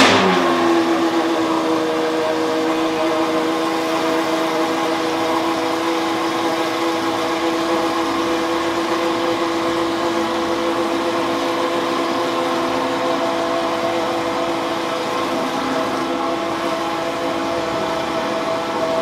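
Pagani Huayra R's naturally aspirated 6.0-litre V12 starting up with a sharp flare that drops away within half a second. It then settles into a steady idle.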